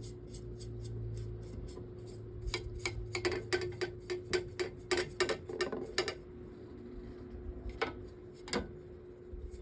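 A brush scrubbing a metal table fan blade in quick, short scratchy strokes, several a second, thickest from about two and a half to six seconds in and then only now and then, over a faint steady hum.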